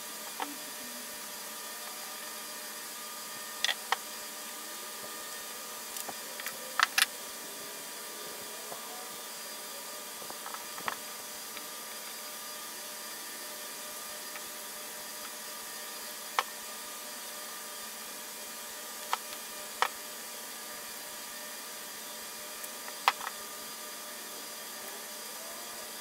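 Light, sharp clicks and taps from hand work with a utility knife and painter's tape on a small metal part, about a dozen scattered irregularly, a few in quick pairs, over a steady background hiss with a faint hum.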